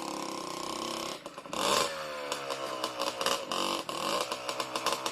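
Yamaha Blaster's single-cylinder two-stroke engine running, revved hard about a second and a half in and then falling away, with rapid crackling as it runs on in first gear after its rebuild.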